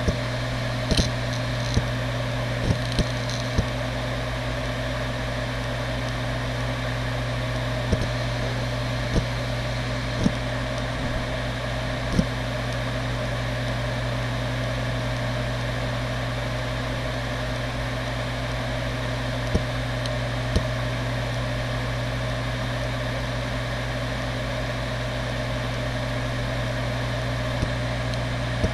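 Seagate Barracuda ES.2 ST31000640SS 1TB 7200 rpm hard drive spinning with a steady hum, its heads giving short seek ticks at irregular intervals, several close together in the first few seconds and again around eight to twelve seconds in, then only a few more, as the RAID controller initializes the drive.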